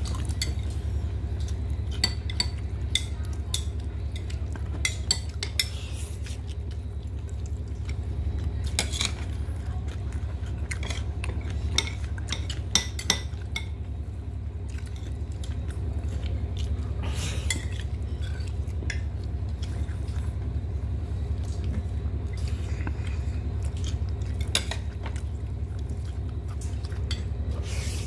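Metal spoon and fingers clinking and scraping on ceramic dinner plates while eating, in scattered sharp clinks, over a steady low hum.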